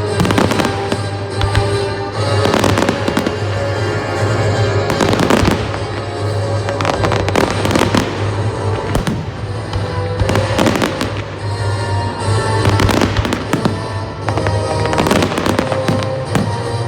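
Fireworks display: aerial shells and firecrackers bursting in rapid, irregular bangs and crackles, over music played loud on the display's sound system.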